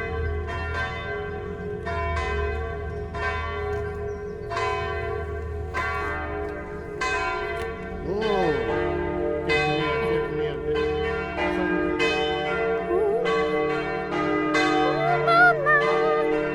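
Church bells pealing: several bells struck one after another, about one to two strokes a second, each stroke ringing on under the next.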